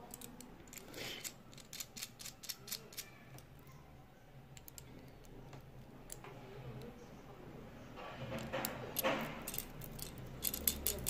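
Light metallic clicks and clinks from a watch case-back wrench and a steel link watch bracelet being handled. There are scattered single ticks over the first few seconds, a short rubbing sound about eight seconds in, then a quick run of jingling clicks near the end.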